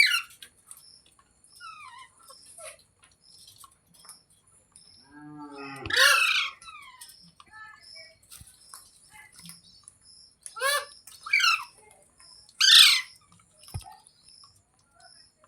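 Green parrot giving loud, shrill calls that fall sharply in pitch, about six of them spaced a few seconds apart, with a faint quick chirping going on steadily in between.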